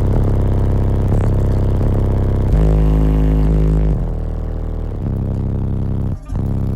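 Car audio system with four Skar ZVX 18-inch subwoofers playing bass-heavy music loud. A deep, sustained bass note dominates about midway through, and the sound briefly drops out near the end.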